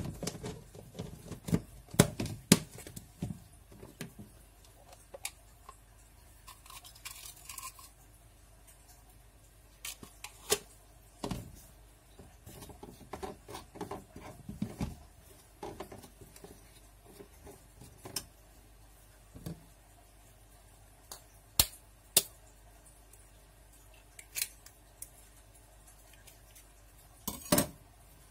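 A metal spoon clinking and scraping against a glass plate while stirring flour, in scattered irregular clicks. Near the end a quick cluster of sharper knocks.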